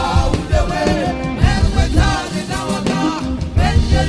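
Gospel song: a voice singing a melody over full band accompaniment with deep bass and drums.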